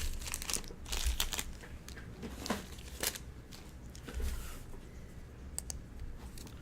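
Baseball card pack wrappers crinkling and cards being handled: scattered rustles and small taps, busiest in the first second and a half and sparser after.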